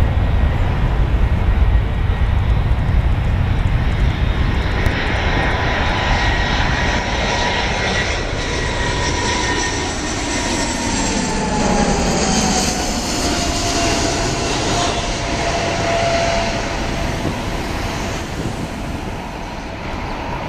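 Airbus A319-114 airliner's CFM56 turbofan engines on final approach, passing low overhead: a loud rushing jet roar with a whining whistle that drops in pitch as the aircraft goes over, about ten to fifteen seconds in, then running on as it moves away toward the runway.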